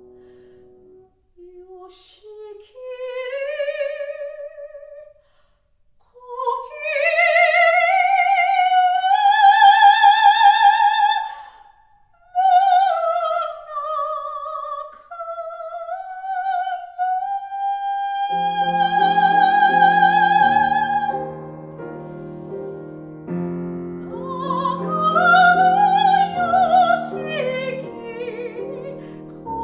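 Classical soprano singing a Japanese art song with wide vibrato, mostly alone at first, with a Steinway grand piano coming in with repeated chords about two-thirds of the way through.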